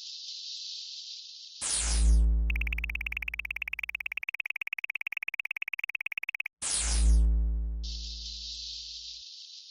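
Synthesized electronic sound effects: a steady high hiss, then a deep bass hit with a falling high sweep, followed by a rapid pulsing high-pitched tone for about four seconds. A second deep hit with a sweep follows, and the hiss returns near the end.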